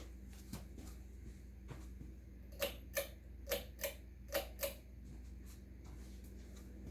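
Fanimation Edgewood ceiling fan with a low steady hum, broken about halfway through by six sharp clicks in three close pairs.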